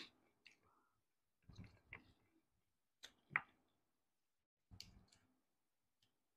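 Faint mouth sounds of eating by hand: a few short lip smacks and chewing clicks, about one every second, in near quiet.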